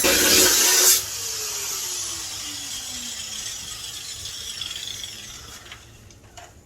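Angle grinder cutting into a cast-iron boiler section; about a second in it is let off and the disc winds down, its pitch falling as it spins to a stop.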